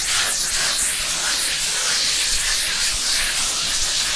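150-grit sandpaper rubbing on a painted drywall wall, hand-sanding in quick strokes and circles: a continuous scratchy hiss that swells and fades with each stroke.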